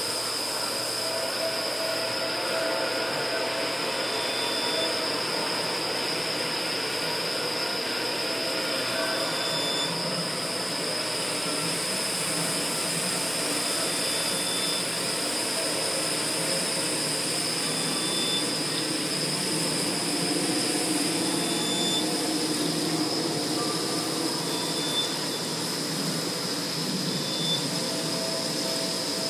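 Steady, dense electronic noise drone from a stage performance's sound score, with a constant high whine and short high pips every second or two.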